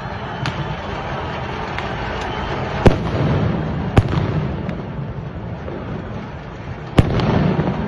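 Explosive bangs: three loud, sharp reports about three seconds in, a second later, and three seconds after that, with a smaller pop near the start, over a steady low rumble of street noise.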